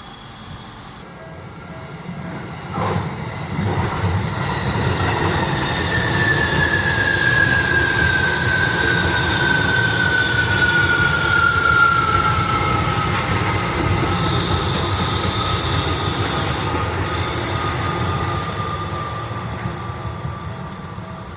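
A Tokyo Metro 17000 series electric train running past, with a rumble that swells, holds and fades away near the end. Through the pass a high whine falls slowly in pitch.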